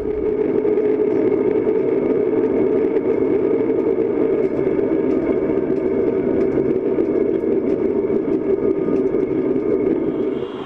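Diesel locomotive running steadily as the train travels along the track, heard from the front of the train, with faint ticking mixed into the steady drone.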